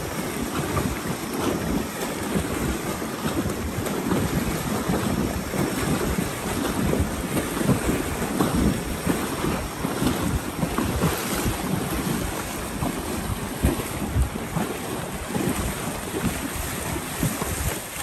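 Strong wind buffeting the microphone in uneven gusts, over the rushing noise of surf.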